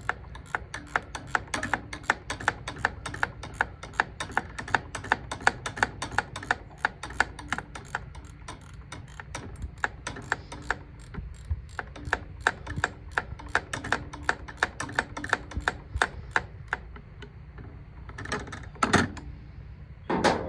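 A ratchet wrench clicking in a fast, even run of metallic clicks, about four a second, as a nut on the baler's knotter is turned. The clicking stops about three seconds before the end, and a couple of louder metal knocks follow.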